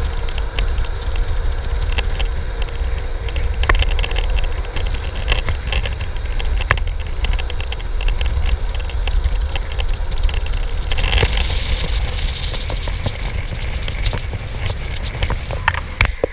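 Wind buffeting the camera microphone and downhill skateboard wheels rolling fast over asphalt, with many small clicks and crackles from bumps and grit in the road. A brief louder hiss comes about eleven seconds in.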